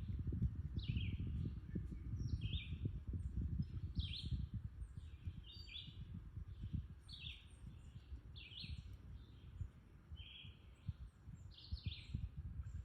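A bird calling over and over, short falling chirps about once a second, over a low rumble that is stronger in the first half.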